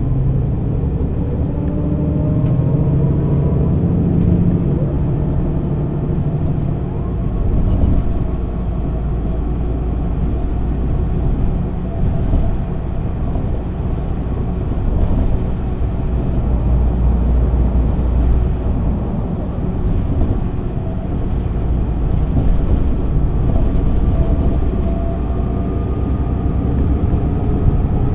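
MAN NÜ 280 city bus with a ZF automatic gearbox, running under way with a steady low rumble. The engine note climbs in pitch in the first few seconds and again near the end as the bus pulls away. A faint high whine rises and then falls in the first several seconds.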